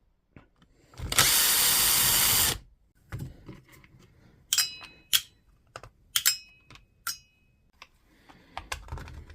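A cordless drill-driver runs for about a second and a half, backing screws out of an angle grinder's plastic housing. Then come scattered clicks and a few small ringing metal clinks as the screws and parts are handled.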